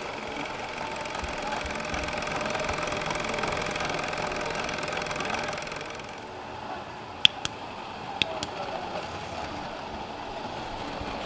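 Small model machinery running with a steady whirring hum that drops away about six seconds in. After that come a few sharp clicks.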